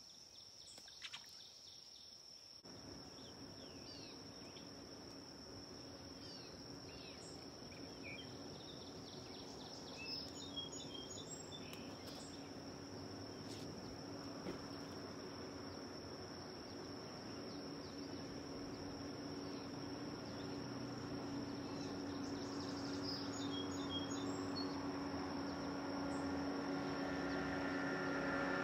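A steady high-pitched insect drone runs throughout, with a few scattered bird chirps. About two seconds in, a low engine hum comes in and grows steadily louder as it approaches, becoming the loudest sound by the end.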